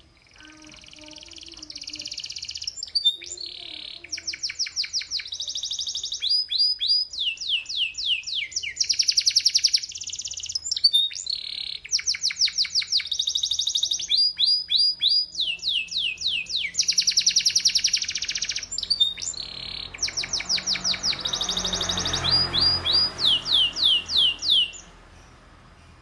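Caged domestic canary singing a long, unbroken song of fast trills and rolls, with phrases of rapid falling notes, stopping suddenly near the end.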